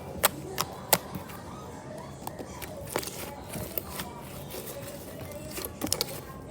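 Slime being squeezed and pressed, giving irregular sharp clicks and pops, the loudest two within the first second.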